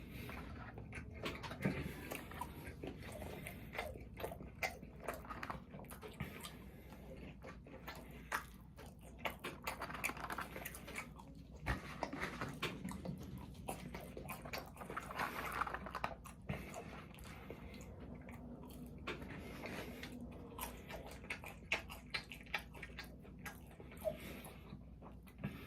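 A person eating close to the microphone: biting and chewing, with many short, irregular mouth clicks and smacks.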